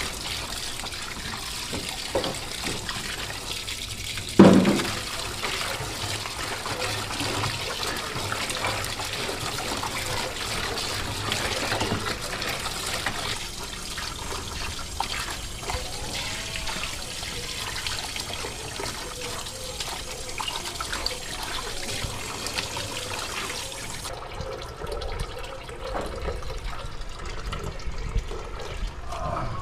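Running water and the wet sloshing of raw pig intestines and offal being washed by gloved hands in a stainless-steel sink. The water's hiss drops away near the end, and there is one loud thump about four seconds in.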